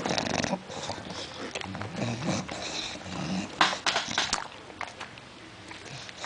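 Sleeping bulldog snoring: irregular, rattling breaths, with a louder, sharper breath a little past halfway.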